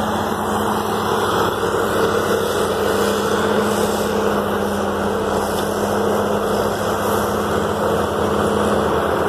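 Bulldozer's diesel engine running steadily close by, a constant drone.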